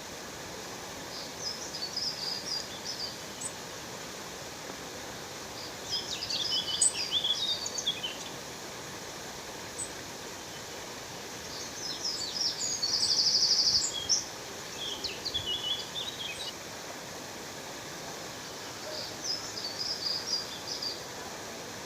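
Steady rush of a waterfall, with small birds singing short bursts of high chirps four times. The loudest is a rapid, buzzy trill about thirteen seconds in.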